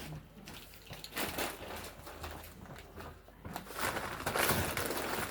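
Plastic shopping bag rustling and crinkling as items are taken out of it, with small irregular knocks and clicks of things being handled. The rustling gets busier and louder for the last second and a half.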